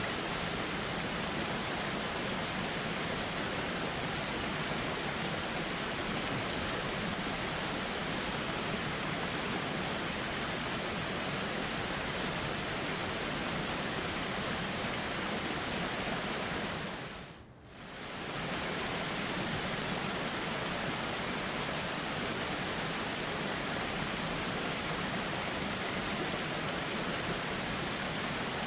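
Steady rushing of a flowing river, an even wash of water noise that fades down briefly and swells back about two-thirds of the way through.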